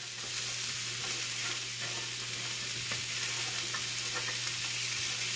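A potato and turkey sausage hash sizzling steadily in a hot pan, with a spatula scraping and stirring through the diced potatoes and mushrooms.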